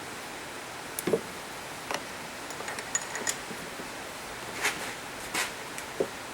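Scattered light clicks and knocks from hands handling tools and metal parts, a few at a time, over a steady background hiss.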